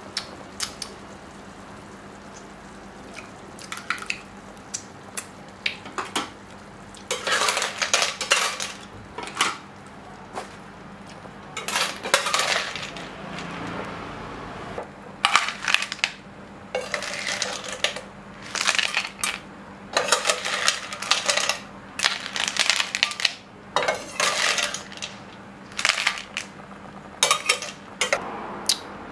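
Metal spatula scraping and clinking in a metal pan and cockle shells clattering as cooked stir-fried cockles are scooped out onto a plate, in repeated bursts of sharp clicks and clacks.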